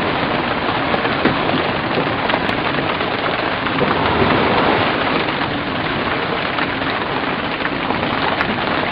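Steady, dense rushing noise of wind and sea on a sailboat under way in waves.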